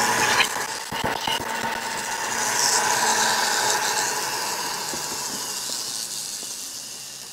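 High-speed rotary grinder spinning free, off the work, its whine fading steadily. About a second in, a few knocks as the aluminium cylinder is set down on the bench.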